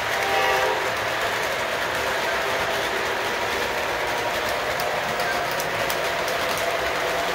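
Model train running on a layout's track: a steady rumble and clatter of wheels on rail, with a brief horn-like tone in the first half second.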